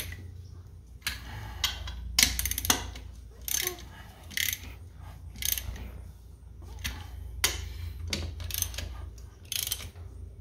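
Hand ratchet wrench clicking in short back-and-forth strokes, a burst of clicks about once a second, as it runs down the nuts holding a bolt-on wheel weight to a compact tractor's rear rim.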